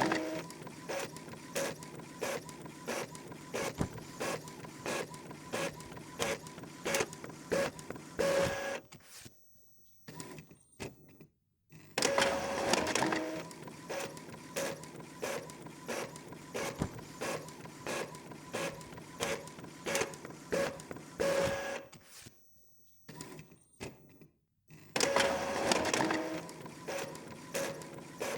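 Epson EcoTank inkjet printer printing a page: the print head carriage runs with a steady whine and regular clicks about twice a second, and louder mechanism sounds at the start and end of the pass. The same printing pass plays three times with short pauses between, the later passes with added reverb.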